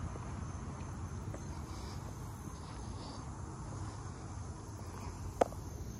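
Outdoor ambience: a steady high-pitched insect drone over a low rumble, with one sharp click near the end.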